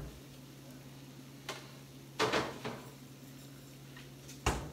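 Refrigerator door and bowl handling: a few knocks and a short clatter about two seconds in, then a dull thump near the end as the door shuts, over a steady low hum.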